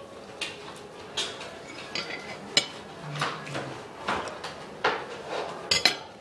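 Irregular clinks and knocks of dishes and cutlery handled on a table, a few ringing briefly; the loudest is a quick double clink near the end.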